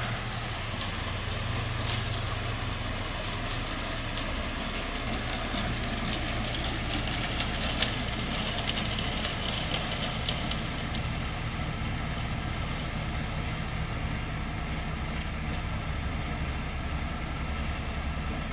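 Engine of a small earthmoving machine running steadily, with a few light knocks around the middle.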